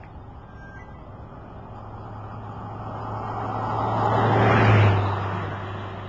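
A road vehicle driving past: engine and tyre noise grow louder, peak about four and a half seconds in, then fade away.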